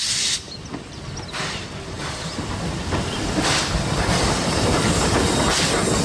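Steam locomotive hissing steam over a low mechanical rumble, with a few brief surges of hiss; it grows louder over the first few seconds, then holds steady.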